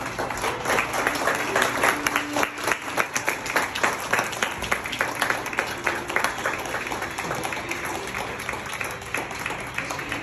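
A room of guests applauding, many hands clapping at once, thinning out near the end.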